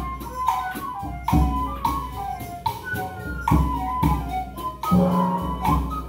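Improvised music: pan pipes playing a run of short flute-like notes, over low booming strikes that come about every two seconds.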